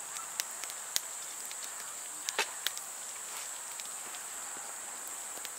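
Firewood crackling in an open fire pit, with scattered sharp pops, the loudest about a second in and around two and a half seconds in. A steady high chirring of night insects runs underneath.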